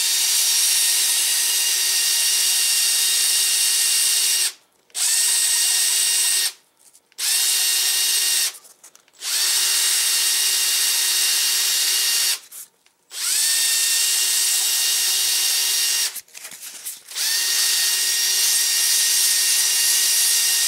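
Cordless drill spinning a small wooden wheel on a mandrel while 220-grit sandpaper is held against it to sand off a leftover edge. The motor whines steadily in six runs of about one to four seconds, stopping briefly between them and spinning back up each time.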